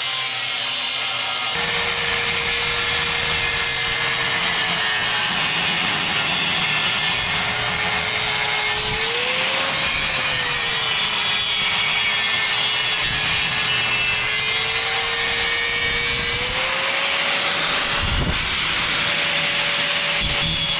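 Angle grinder with a cut-off wheel cutting through steel chassis frame, a steady motor whine over the hiss of the cut that sags and recovers as the wheel bites. Near the end the pitch rises as the grinder comes off the steel and runs free.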